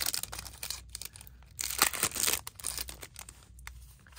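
Plastic cellophane wrap being torn and crinkled off a playing-card tuck box, in a crackling burst at the start and a louder one about two seconds in, with lighter rustling between.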